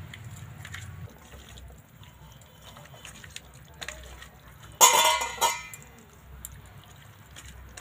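Hand squishing and mixing raw chicken pieces with ginger-garlic paste in a steel bowl: soft, wet squelching. About five seconds in, a brief loud sound with a clear pitch cuts across it.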